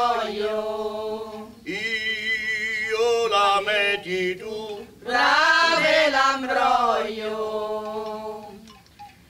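Unaccompanied Italian folk singing, a traditional harvest song: voices draw out long, wavering notes in phrases of a few seconds, fading near the end.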